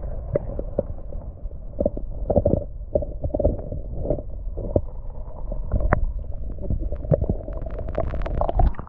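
River water heard through an action camera's waterproof housing held underwater: a muffled low rumble with a faint steady hum, broken by many irregular clicks and knocks.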